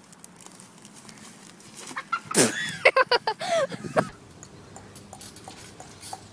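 A run of short, pitched bird-like calls, several in quick succession about three seconds in, ending with a longer call.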